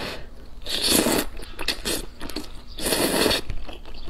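A person slurping in mouthfuls of thick stir-fried rice noodles, with wet chewing in between. There are two loud slurps, one about a second in and one about three seconds in.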